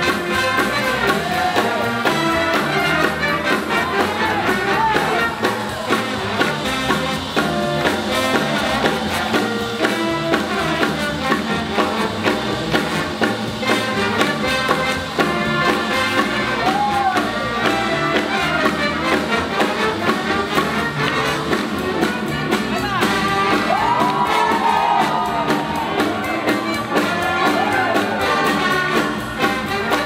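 Live swing jazz big band playing an up-tempo tune, with trumpets and trombones over a steady beat.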